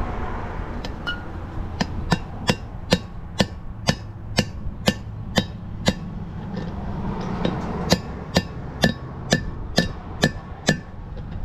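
Hammer blows on a bearing race installer driving a new wheel bearing race into a Chevy C3500HD front hub, about two blows a second in two runs with a pause of about two seconds between them. Each strike rings with a short metallic ping, the sound that tells when the race is seated all the way. Wind rumbles on the microphone underneath.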